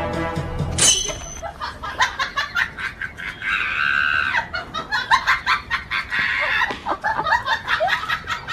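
Music cuts off under a second in, then a chicken clucks over and over in short sharp strokes, with a longer, higher call about three to four seconds in.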